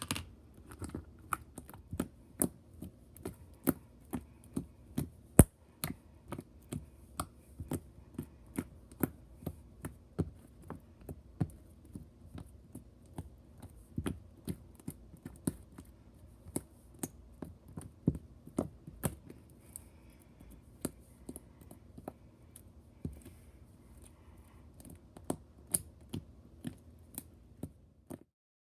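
White glue slime being squished and poked by hand, giving a run of sharp clicks and pops, about one or two a second and irregular. The sound cuts off suddenly near the end.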